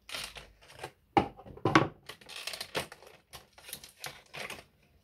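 Clear plastic packaging tray crackling and crinkling as a model railway coach is handled inside it, a run of short irregular crackles with two louder ones a little over a second in.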